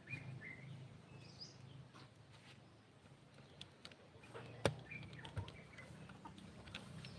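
Chickens clucking faintly, with a few sharp clicks around the middle, the loudest a little past halfway.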